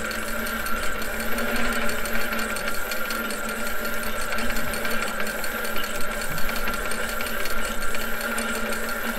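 A small fishing boat's engine and machinery running steadily, a constant hum with a fast, even ticking.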